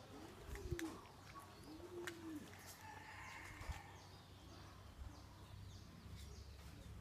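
A dove cooing faintly, two arched low coos in the first two and a half seconds, with scattered small bird chirps and a couple of soft clicks.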